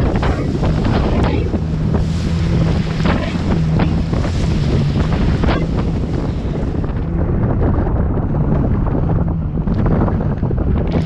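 Jet ski running under way through choppy seas: a steady engine note, with the hull slapping and spray hitting about once a second in the first half, all under heavy wind buffeting on the microphone.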